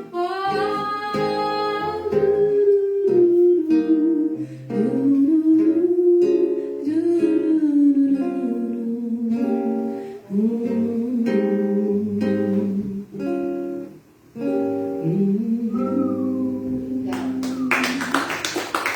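A voice singing a slow melody in long held, sliding notes over plucked acoustic guitar chords. Near the end the song stops and hand clapping begins.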